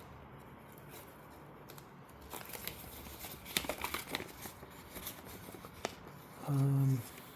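A cardboard box being opened and its packaging handled: a run of sharp rips and rustles from about two to four seconds in, another near six seconds, and a short voiced sound near the end.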